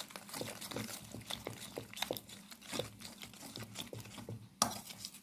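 A spoon stirring wheat flour and water into batter in a stainless steel bowl: soft wet squelching with irregular light clicks and scrapes of the spoon on the bowl, and a sharper knock about four and a half seconds in.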